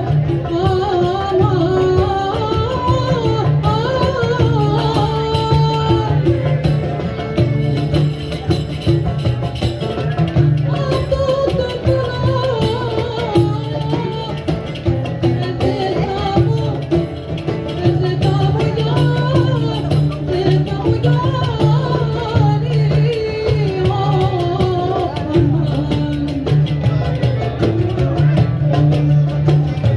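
Middle Eastern–flavoured folk music: an ornamented melody bends and winds in pitch over a steady low accompaniment and light percussion.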